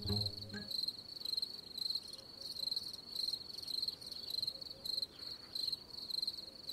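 Crickets chirping at a steady, even rate of about three high chirps a second. The tail of a low music note fades out in the first half second.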